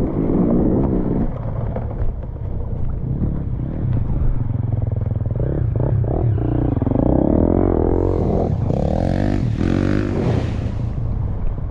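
Enduro dirt bike engine revving up and down as the bike is ridden through muddy corners, heard from the rider's helmet, with a few knocks and a rush of hiss near the end.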